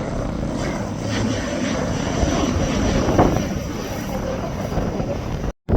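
Airliner engines at an airport, a steady loud rush with a faint high whine, mixed with wind on the microphone. The sound cuts out completely for a split second near the end.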